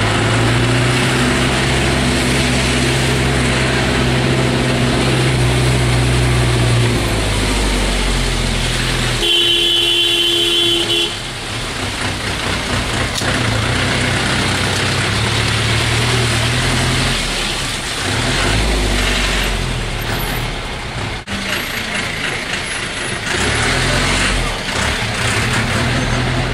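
A motor vehicle's engine running with a steady low hum. A short horn blast sounds about ten seconds in, and after it the engine noise rises and falls.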